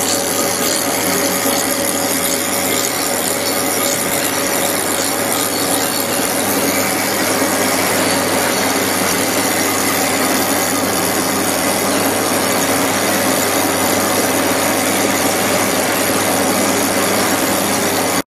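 A spinning steel valve ball being machined on a lathe, with the finishing tool rubbing against the ball's surface: a steady, dense scraping hiss over a low machine hum, with a faint steady tone. It cuts off suddenly near the end.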